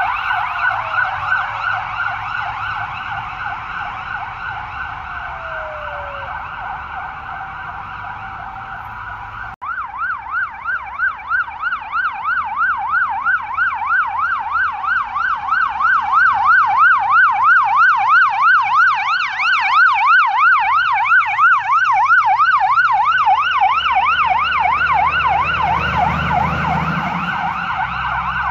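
Fire engine siren sweeping rapidly up and down in a fast yelp, from a Scania P450 XT heavy rescue-firefighting truck on an emergency run. It cuts out for an instant about ten seconds in and resumes. Near the end the truck's diesel engine rises low under the siren as it passes close.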